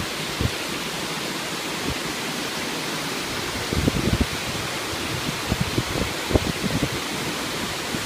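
Darbat waterfall rushing steadily as water pours over the cliff lip right below. Short low thumps come in a cluster about four seconds in and again a couple of times later.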